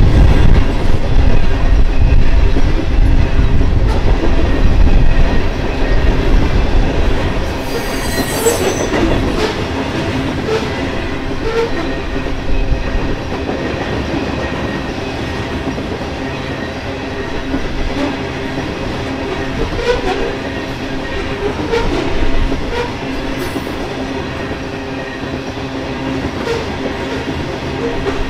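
Freight train of covered hopper cars rolling past: steel wheels clattering on the rail under a steady metallic whine. The deep rumble eases about seven seconds in.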